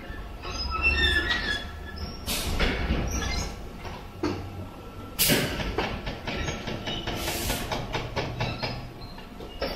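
Pneumatic high-frequency embossing press venting compressed air in three sharp hisses, about two seconds in, about five seconds in and a longer one near seven seconds, over a steady low hum with scattered squeaks and clatter.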